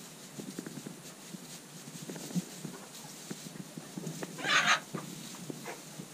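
Sheep pulling at and munching hay in a wooden pen, with many small knocks and rustles of hay, hooves and boards. About four and a half seconds in there is one short, loud hissing burst.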